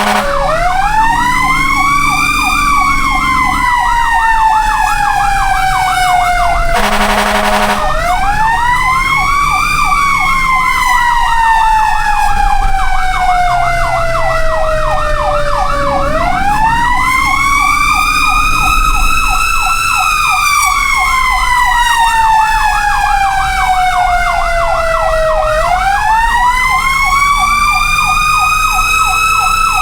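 Fire truck sirens: a wail that rises quickly and falls slowly, about every nine seconds, over a fast warbling yelp. A short loud burst cuts in about seven seconds in.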